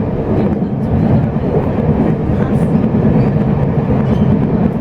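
Steady running rumble of a Chu-Kuang express passenger coach under way, heard from inside the carriage.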